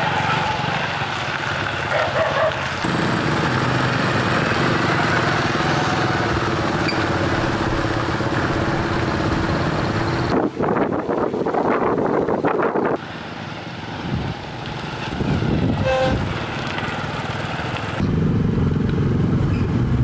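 Several small underbone motorbikes ride past in a group, their engines running steadily. The sound changes abruptly a few times as the scene cuts.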